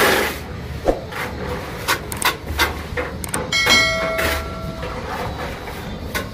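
Plastering trowel tapping and scraping wet cement mortar along the edge of a ceiling beam, a series of irregular short strokes. A bell-like chime rings for about a second, about halfway through.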